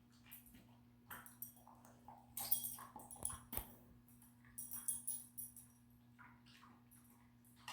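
A Labrador chewing on a dental chew stick, the metal tags on its collar jingling in irregular bursts as it works at the chew, loudest about two and a half seconds in. A steady low hum runs underneath.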